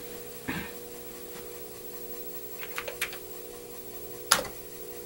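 Keys being pressed on a Commodore 128 keyboard: a few separate clicks, with the loudest keystroke near the end. A steady low hum runs underneath.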